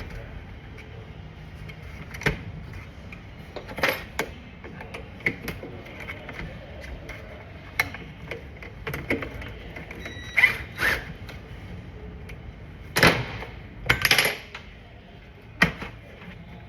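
Irregular clicks, clacks and short scraping rasps of hands handling the concrete saw's parts, with a few louder, longer rasps in the second half. No engine is running.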